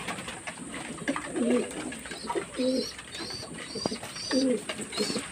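Domestic pigeons in a wire cage cooing, a run of short, wavering coos one after another.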